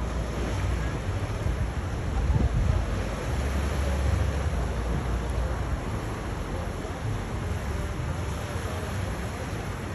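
Steady rushing outdoor noise with an uneven low rumble, heaviest in the first few seconds.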